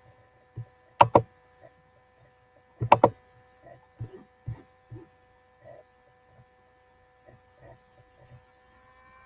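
Two loud double clicks at a computer, about two seconds apart, then softer scattered taps and knocks, over a steady electrical hum with several high whining tones.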